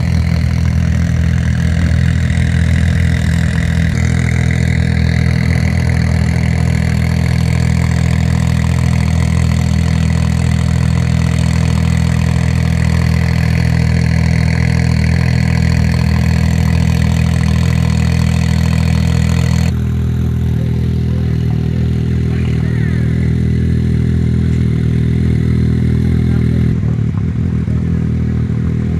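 A vehicle engine idling steadily, a low even note that holds without revving. The sound changes abruptly about two-thirds of the way through.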